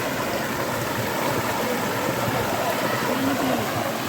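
Steady rushing of falling and flowing water, with faint voices in the background.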